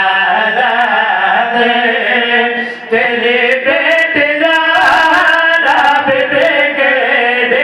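Men singing a devotional qasida into microphones, in a melodic chant with long, wavering held notes.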